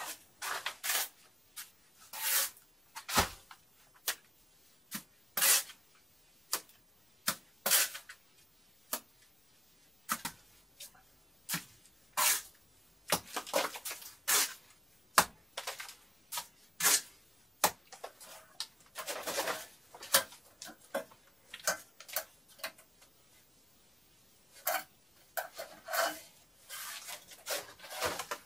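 Hand tools at work setting plaster beacons in mortar on a brick wall: irregular sharp clacks, taps and short scrapes, coming in clusters with short lulls between.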